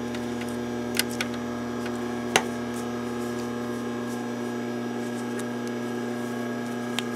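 Steady electrical hum, with a few light clicks over it: a quick pair about a second in as scissors snip thread ends, and single ticks later on.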